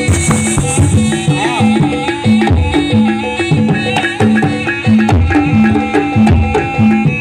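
Live Javanese jaranan-style dance music: an ensemble of drums and pitched percussion playing in a steady rhythm, with a low note repeating on the beat.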